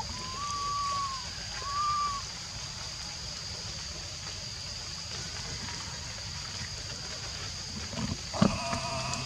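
Outdoor ambience with a steady high-pitched insect drone and a low rumble. Two short whistled calls that rise and fall come in the first two seconds, and a brief voice-like call with a few knocks comes near the end.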